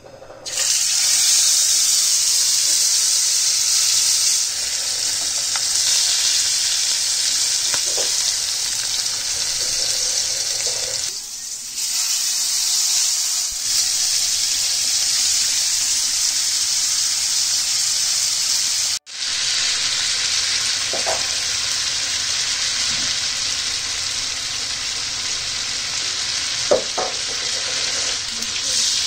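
Ribeye steak searing in a very hot, oiled pan: a loud, steady sizzle that starts suddenly, with a few faint clicks of a utensil against the pan.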